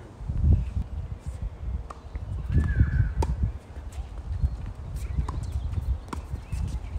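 Tennis rally on a hard court: about six sharp racket-on-ball pops a second or so apart, with quick footsteps and a loud, uneven low rumble underneath.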